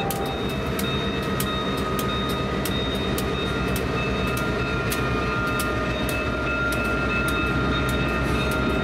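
Diesel-electric locomotives running slowly with a steady engine rumble and a constant high whine, with irregular sharp metallic clicks throughout.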